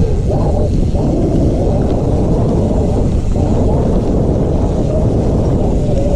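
Steady low rumble of wind buffeting the microphone of a camera carried on a moving mountain bike, mixed with the bike's rolling noise over the trail.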